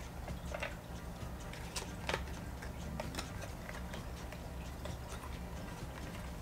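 Plastic ice-fishing tip-up being handled: irregular light clicks and taps as its parts and flag are moved, one sharper click about two seconds in.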